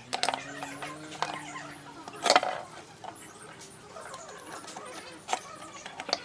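Scattered sharp clicks and knocks, the loudest a little over two seconds in, over a faint low tone that fades out in the first two seconds.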